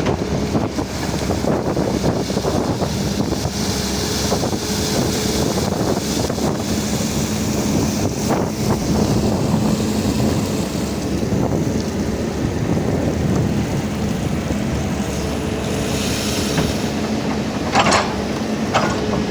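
Excavator's diesel engine running steadily, with wind noise on the microphone. A couple of sharp knocks come near the end.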